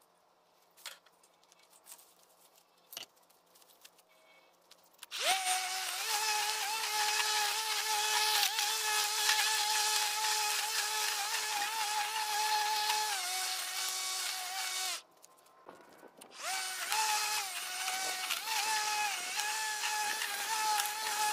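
Battery-powered Snapper lawn mower's electric motor starting about five seconds in and running with a steady high whine that dips in pitch now and then as it cuts. It stops for about a second and a half near fifteen seconds in, then starts again. A few faint clicks come before it first starts.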